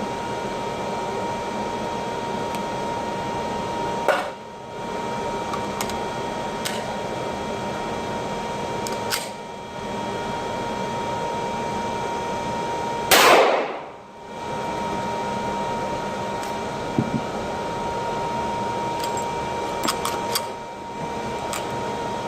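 Gunshots at an indoor shooting range: three sharp reports spaced several seconds apart, the third the loudest, each followed by a brief drop in level. A steady fan-like hum runs underneath, and a few lighter clicks come near the end.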